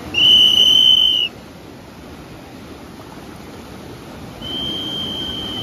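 Lifeguard's whistle: one loud blast of about a second, then a second, softer blast near the end that is held longer. Steady surf wash underneath.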